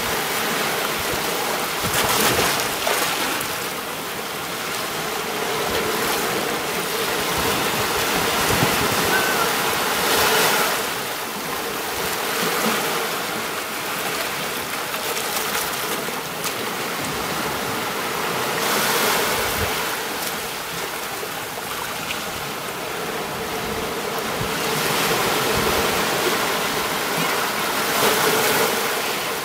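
Sea waves washing onto a beach, a continuous rush of surf that swells and eases every several seconds.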